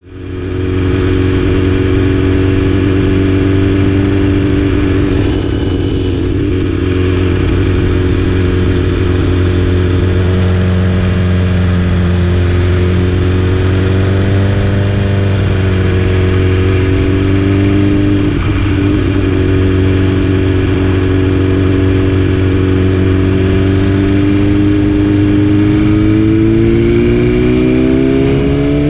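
BMW S1000RR inline-four with an Akrapovic exhaust running at fairly steady revs. The pitch drifts gently and climbs near the end as the engine revs up.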